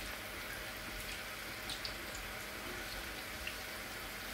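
Samosas deep-frying in hot oil in a wok: a steady sizzle with a few small pops.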